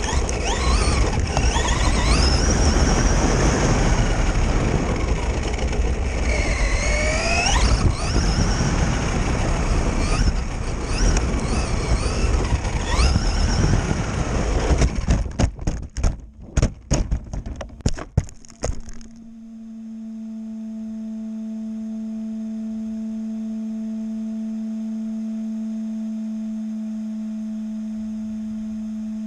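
RC car's electric motor whining up and down in pitch as it speeds up and slows, over a loud rushing noise. About 15 seconds in the sound turns choppy and breaks up, and from about 19 seconds a steady low hum tone takes over.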